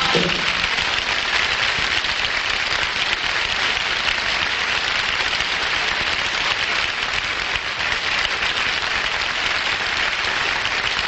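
Studio audience applauding steadily, a dense clapping that holds at an even level, with the orchestra's final note dying away right at the start.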